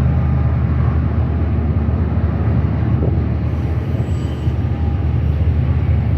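Steady low rumble of a running motor vehicle, even throughout.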